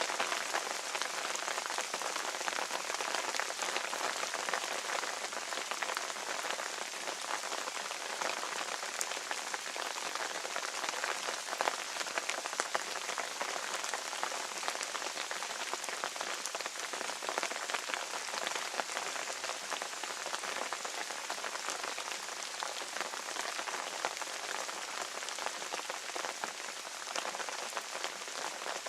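Steady rain falling: a dense, even patter of drops with sharper single drop hits scattered through it.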